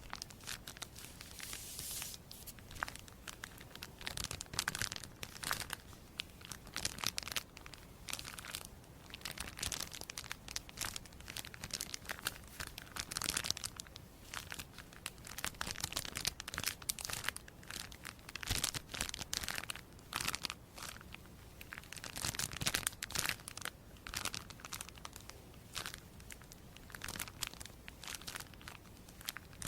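Crisp crinkling and tearing sounds: a dense, irregular run of crackles that keeps on with small lulls.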